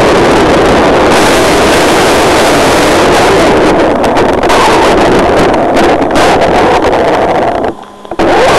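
Loud, steady rushing noise picked up by an onboard camera riding on a 6S electric RC car as it drives on a wet road: the car's running gear and the rush of air over the camera. It drops away sharply for a moment near the end, then comes back.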